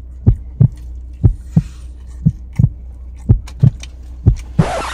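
Heartbeat sound effect: low thumps in pairs, lub-dub, about once a second, over a steady low hum. A short, loud burst of hissing noise comes near the end.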